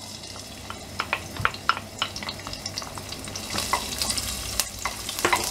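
Chopped garlic sizzling in hot olive oil in a stainless steel pot, stirred with a wooden spoon. The sizzle swells about three and a half seconds in, with scattered clicks and pops throughout.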